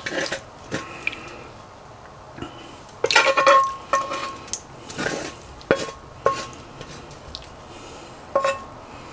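A metal spoon scraping and clinking against a ridged griddle pan as sauce is worked out of it onto a plate. The clinks and scrapes are irregular, and a few ring briefly.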